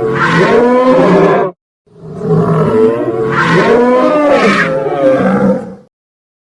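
Dinosaur roar sound effects. One roar ends about a second and a half in, and after a short gap a second, longer roar with a wavering pitch lasts about four seconds and cuts off sharply.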